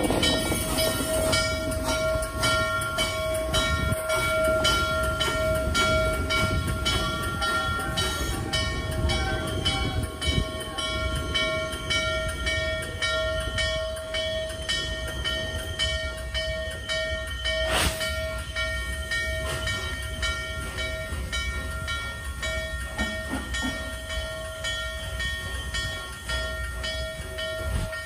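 Norfolk & Western J-class 4-8-4 steam locomotive No. 611 running slowly, with an even, regular beat over a low rumble and a constant steady tone, slowly fading. There is one sharp click about eighteen seconds in.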